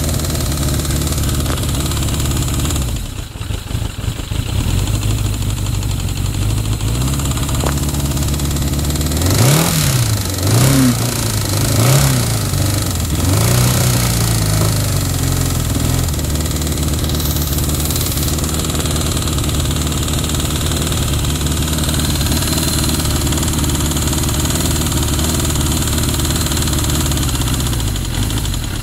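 1983 Suzuki GS75X motorcycle engine idling, blipped up and down about four times near the middle, then settling back to a steady idle. The owner believes the engine makes a wrong sound.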